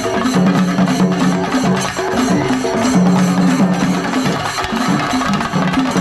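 Shinkari melam: chenda drums beaten in a fast, dense rhythm, with a melody over them that steps from note to note.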